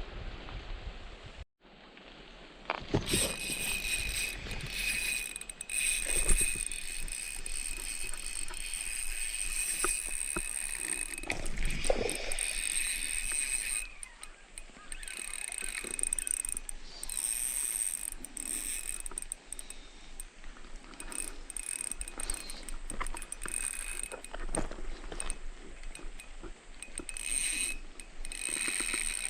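Fishing reel being cranked, a steady mechanical whirring with fine ratchet-like clicking as line is wound in, stopping briefly now and then.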